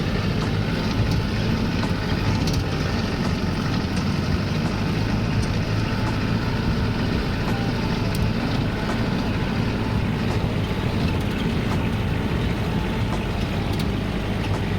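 Steady engine hum and road noise of a moving motor vehicle, running evenly throughout.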